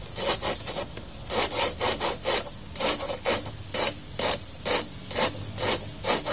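Engine valve of a Super Kama 12 HP single-cylinder diesel being lapped into its seat with grinding compound, twisted back and forth with pliers. A gritty rasping scrape comes with each turn, about two a second.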